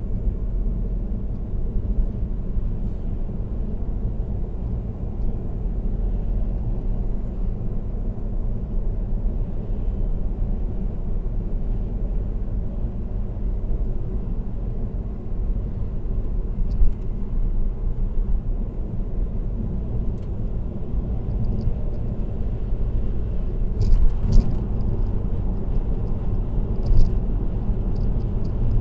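Steady low rumble of a car's road and tyre noise at expressway speed, heard from inside the car. A few brief light rattles or clicks come in near the end.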